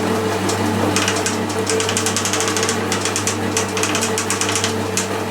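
Milling machine taking a rough cut across the top of a metal block: a steady motor hum with a fast, rattling cutting noise over it.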